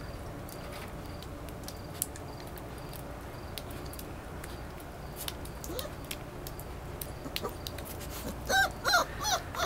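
Puppy giving several short high-pitched whimpering calls in quick succession near the end. Under them run faint scattered clicks and a low steady hum.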